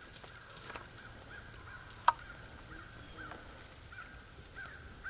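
Beagle pack baying in the distance while running a rabbit: a steady string of short, clipped bays, a few a second. A single sharp snap stands out about two seconds in.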